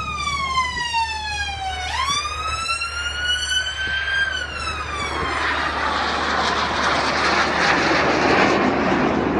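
Display aircraft's engine making a high whine that slides down in pitch, swoops back up about two seconds in, then slowly falls again. In the second half a broad roar of engine noise builds up and grows louder toward the end.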